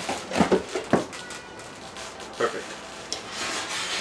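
Dust-collection fittings knocking and rattling in a cardboard box as one is rummaged out by hand: a few sharp clatters in the first second.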